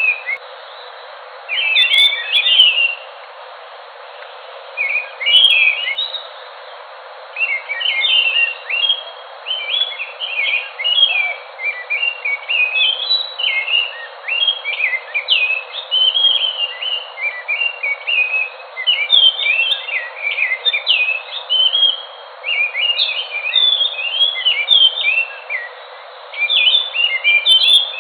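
Geokichla ground thrush (anis) singing: fast, varied phrases of high whistled notes, in separate bursts at first and then almost without pause, over a steady hiss.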